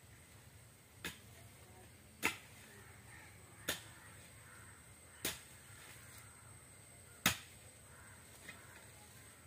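A hand tool pounding the soil floor of an earthen tank to level and firm it: six sharp thuds at uneven intervals of one to two seconds, the loudest about seven seconds in and the last one faint.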